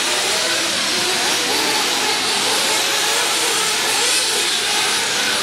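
Radio-controlled race cars running on a dirt track: a steady hiss of motors and tyres.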